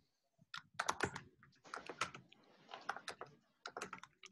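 Faint typing on a computer keyboard: irregular clusters of key clicks, several a second.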